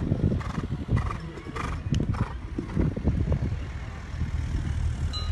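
A horse cantering on an arena's sand footing, its hoofbeats and strides coming about three every two seconds, as it approaches and jumps a show-jumping fence.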